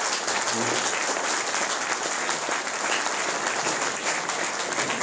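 Audience applauding: many people clapping their hands steadily.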